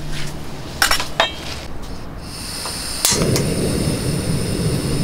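Stainless pot clinking a couple of times on the metal grate of a single-burner camping gas stove. A thin gas hiss starts about two seconds in. A sharp click comes about three seconds in, and the burner lights into a steady rushing flame noise.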